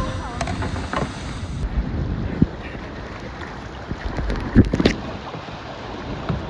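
Wind buffeting the microphone over sea water lapping around a kayak, with a few short splashes, the loudest about two thirds of the way in.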